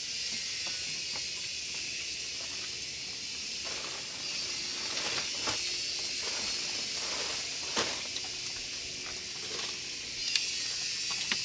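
A steady high-pitched hiss, with a few faint knocks or clicks.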